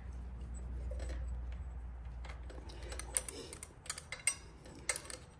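Sharp metallic clicks and taps of a box-end wrench on the 8 mm bolt holding a motorcycle's gear shift lever as the bolt is loosened. There are a handful of irregular clicks in the second half, over a low hum that fades out about three seconds in.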